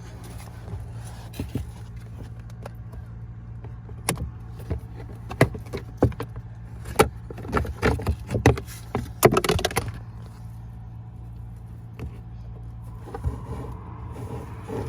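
Sharp plastic clicks and knocks, typical of a car's glovebox being handled and unclipped, come in a quick run from about four to ten seconds in, over a steady low hum.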